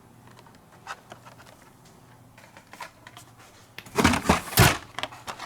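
Carded Hot Wheels packages, cardboard backing cards with plastic blisters, being handled: a few light clicks, then a louder rustle and clatter about four seconds in as the packages are shuffled.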